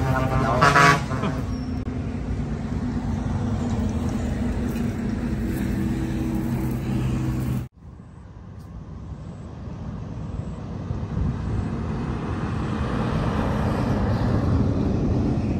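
Road traffic: a vehicle horn toots briefly near the start over a steady engine hum. After a cut about eight seconds in, a rushing traffic noise slowly grows louder.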